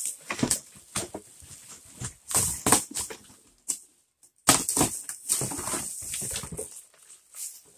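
Plastic wrapping crinkling and cardboard boxes rubbing and scraping as a packaged box is handled and pulled out of a cardboard carton, in irregular bursts that die away about a second before the end.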